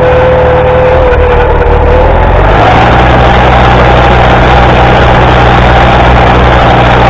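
International Harvester 240 tractor engine running while the tractor drives, with a high steady whine over it. About two and a half seconds in, the engine speeds up and the whine rises in pitch, then both hold steady.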